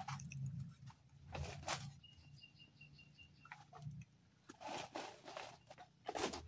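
Carry bag rustling and crinkling in several short bursts as hands of green bananas are handled and put into it. A bird gives a brief run of quick high chirps a little after the start.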